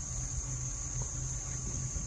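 Insect chorus: a steady high-pitched drone of crickets, over a low uneven rumble.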